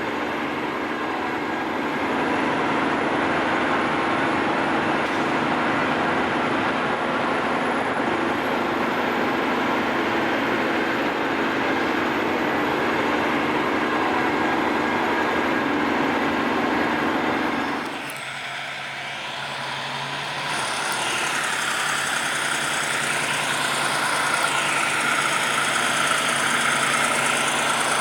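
A logging truck's engine and road noise, running steadily as it drives. About eighteen seconds in the sound changes abruptly, and after that the engine note rises and falls.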